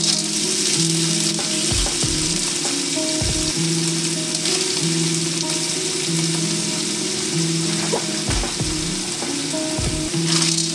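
Food sizzling steadily as it stir-fries in a stainless steel wok over a gas flame, with a few dull knocks as it is stirred.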